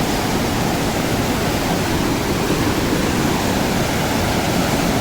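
Fast mountain river rushing steadily, heard close up from its bank; the current is very strong.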